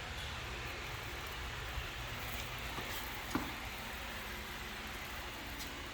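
Painter's tape being peeled up off a painted concrete floor, a steady crackling rip with a few small ticks, the sharpest about halfway through.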